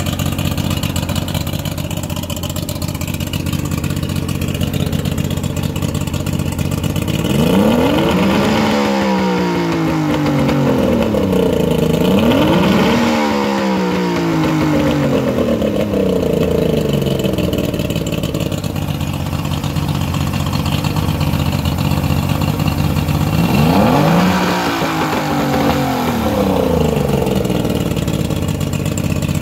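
2001 Mercury 50 hp two-stroke outboard motor idling steadily and revved three times. Each time the pitch rises and then falls back to idle: twice in quick succession about a third of the way in, and once more near the end.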